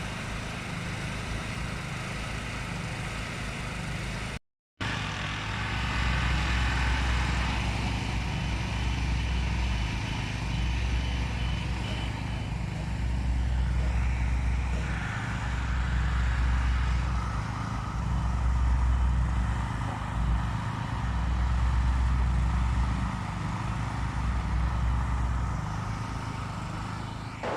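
Steady motorway traffic noise, with a low rumble that swells and fades every few seconds as heavy vehicles pass. The sound cuts out briefly about four seconds in.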